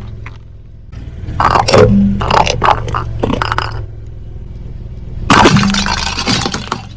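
A car tyre crushing brittle objects, with a run of sharp cracking and crunching snaps, then a second, denser burst of crushing near the end. A steady low hum runs beneath.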